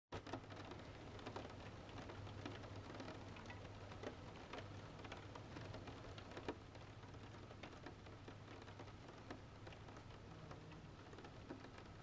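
Light rain pattering, with many scattered individual drips over a low steady hum.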